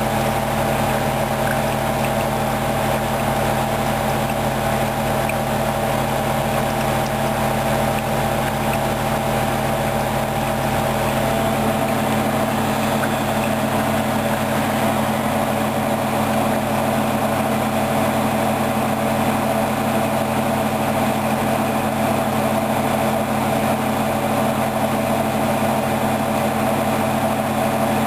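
Hoover DYN 10124 DP washing machine running steadily in a high-speed spin, with a steady motor and drum hum made of several tones. About twelve seconds in, the deepest rumble drops away.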